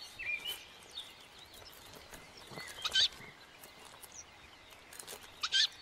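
Short, high bird chirps over quiet forest background, with two louder chirps, one about three seconds in and one near the end.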